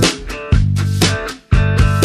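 Background music: plucked guitar with a bass line over a steady beat of about two strikes a second.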